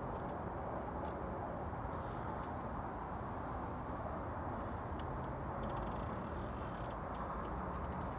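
Steady outdoor background noise, an even low rush, with a few faint, short high chirps.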